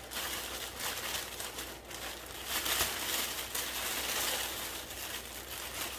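Plastic fish-shipping bag crinkling and rustling continuously as it is handled and opened.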